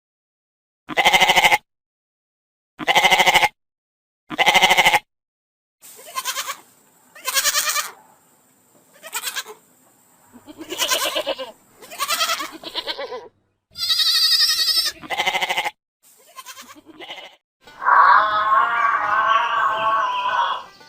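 A bleating animal calling over and over, about a dozen short calls, each under a second, with a quavering, wavering tone.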